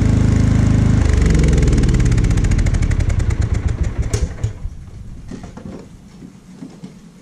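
Lawn mower engine running loud and close, then winding down: its firing slows over a couple of seconds and stops about four and a half seconds in, leaving a few faint clicks.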